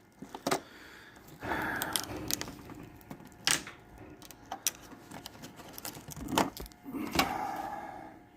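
Plastic interior trim on a car's C-pillar being pried and worked loose: several sharp clicks and cracks with scraping and rattling between them, as clips break and the panel, glued in with silicone, comes away.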